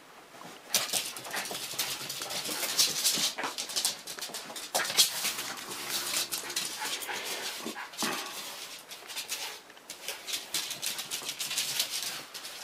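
Two small dogs playing and scuffling over a toy, with dog sounds and scrabbling starting about a second in as a dense run of short, noisy scuffs.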